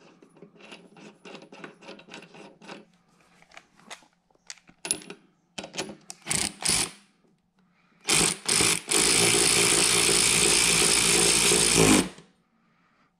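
Cordless ratchet spinning a 5/8 socket to run a mower blade bolt into a new deck spindle: two short blips, then about three seconds of steady running that stops abruptly. Before it, a run of light clicks and a few knocks as the socket and extension are fitted onto the bolt.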